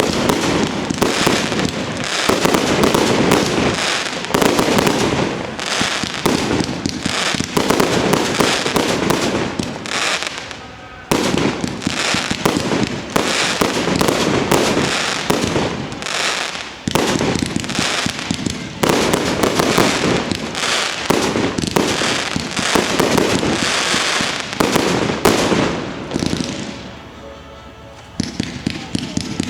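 Fireworks display: a dense, continuous barrage of bursts and crackling shells, easing briefly three times and dying down near the end before picking up again.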